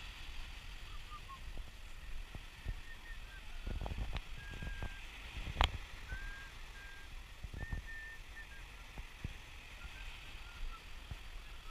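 Outdoor ambience on a handheld camera microphone: a low rumble with irregular thumps, a steady hiss, and several faint, short, high-pitched calls, with one sharp click about halfway through.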